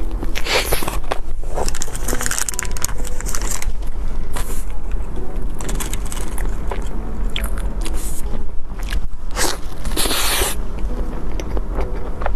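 Close-miked eating of cake: bites and chewing with a run of small clicks and crackles, broken by several short scraping bursts, the longest about ten seconds in.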